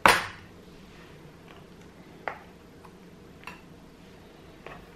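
A smartphone and its cardboard box being handled: a short scrape right at the start, then a few light clicks and taps as the phone is lifted out of its box tray.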